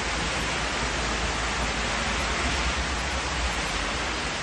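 Heavy summer rain falling steadily on terraces and pavement, an even hiss with a low rumble underneath.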